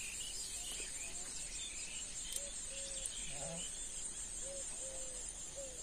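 Steady high-pitched insect chorus with scattered bird chirps. A short, low call repeats about once a second through the second half.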